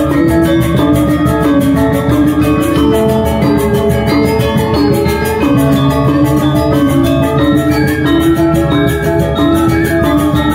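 Balinese gamelan gong ensemble playing a tabuh. Bronze-keyed metallophones ring in dense interlocking patterns over a fast, even pulse, with kendang drums driving the rhythm.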